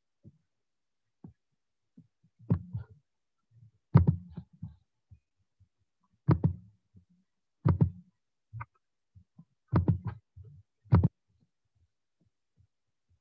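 A series of about seven dull thumps, irregular and one to two seconds apart, picked up through a video call's microphone.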